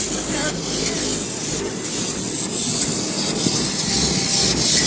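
Car stereo system in a 2002 Buick Regal blasting music very loud, coming across as a dense, hissy wash with heavy low bass.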